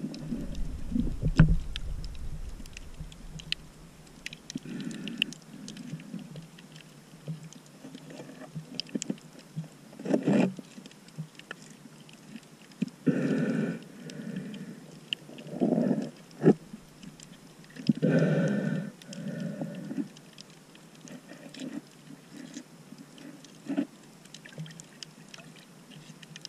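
Muffled underwater sound through a camera's waterproof housing: a snorkeler's breaths through the snorkel come as low swells about a second long every few seconds, with scattered sharp clicks and a brief low rumble at the start.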